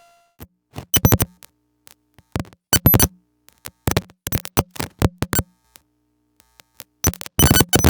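Electronic interference sound effect: irregular bursts of sharp crackling and stuttering digital glitches, separated by short silences, with a low buzz under the louder bursts.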